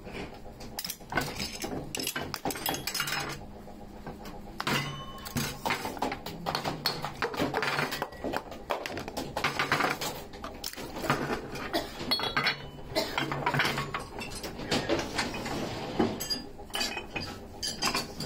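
Metal pipe-fitting elbows clinking and clattering as they are handled, many small metallic knocks, some ringing briefly. A low hum comes and goes underneath.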